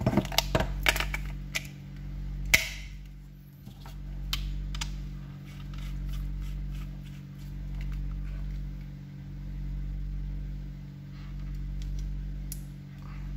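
Plastic clicks and knocks as a Redell UV99 Plus walkie-talkie is handled and snapped back together, with one sharp click about two and a half seconds in. After that a steady low hum swells and fades about every two seconds.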